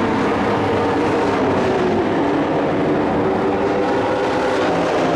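Engines of pickup-bodied race trucks running at speed around the track, a loud steady drone whose pitch wavers up and down slightly.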